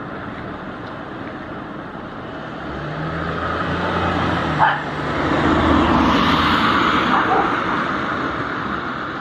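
Road traffic: a motor vehicle passes, its engine and tyre noise growing from about three seconds in and fading near the end. A short sharp sound stands out about halfway through.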